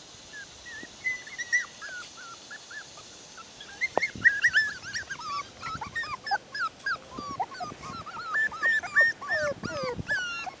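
Several six-week-old bichon-poodle mix puppies whining and yipping in short high-pitched cries, scattered at first and coming thick and fast from about four seconds in.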